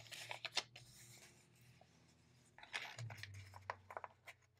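Hands rubbing and pressing down a diamond painting canvas under its paper release cover: faint rustling and sliding of paper, in short bursts near the start and again about three seconds in.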